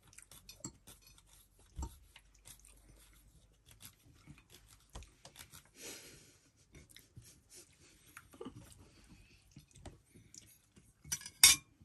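Light clinks and scrapes of cutlery against plates, with one loud sharp clink near the end.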